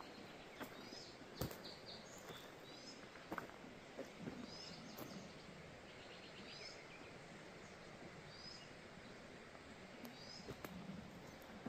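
Faint outdoor ambience: a small bird repeats a short, high chirp every second or two over a steady background hiss, with a few faint clicks.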